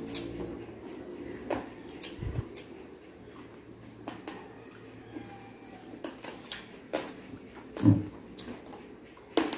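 Close-up eating sounds: chewing of crunchy crispy pata and small clicks of a spoon and fingers against plates, scattered and irregular, with a couple of louder knocks near the end.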